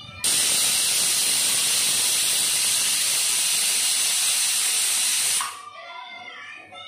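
Aluminium stovetop pressure cooker venting steam under its weighted whistle: a loud, steady hiss that starts suddenly and cuts off abruptly after about five seconds, the sign that the cooker has come up to pressure.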